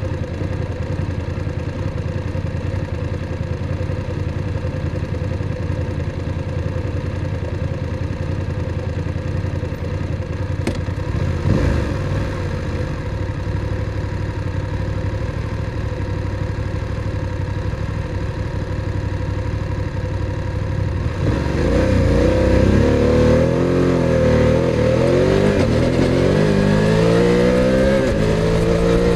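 BMW F850 GS's parallel-twin engine idling at a standstill, with one short blip of the throttle about halfway through. About two-thirds of the way in the bike pulls away and the engine note rises, dips and climbs again as it accelerates, growing louder.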